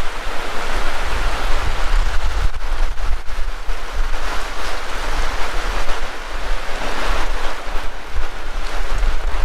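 Heavy rain pouring steadily in a dense hiss, with a low rumble of wind buffeting the microphone.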